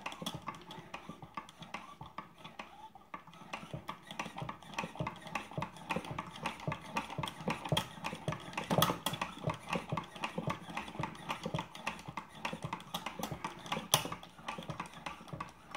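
Höhm cut-away demonstration model of a steam engine, turned fast by hand at the flywheel, its piston, valve linkage and flyball governor clattering in a quick, even run of clicks, with a sharper knock near the end.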